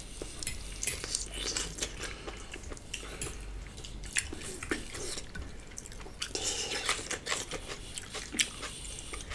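A fork clinking and scraping against a plate, in scattered light clicks, with soft eating sounds between them.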